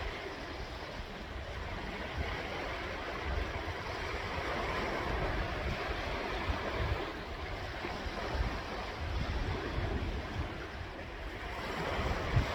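Sea waves washing in a continuous surf hiss, with wind gusting on the microphone as a low, uneven rumble. The wash swells a little near the end.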